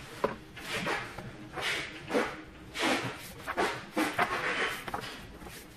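Pages of a large photobook being turned and handled by hand: a series of quick paper swishes and rustles.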